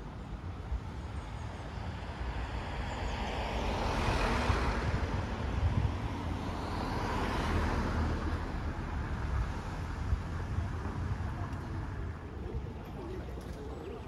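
Street traffic rumble with a vehicle passing close by, swelling about four seconds in and fading away after about eight seconds.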